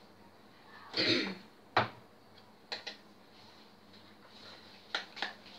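Kitchen items handled at an open wooden wall cabinet: a short rustle about a second in, one sharp knock just under two seconds in, then a few light clicks.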